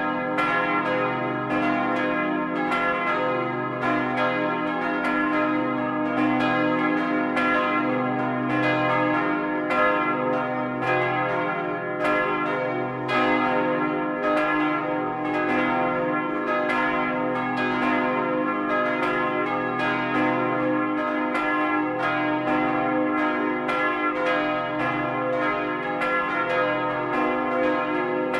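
Several swinging church bells, cast in 1952 by Karl Czudnochowsky, ringing together in full peal, heard close up in the belfry. Overlapping clapper strikes come several a second over a continuous ringing hum.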